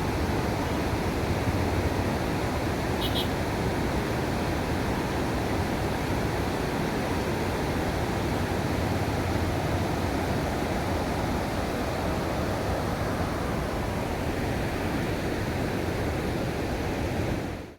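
Steady rushing of falling water, an even hiss without rhythm or breaks.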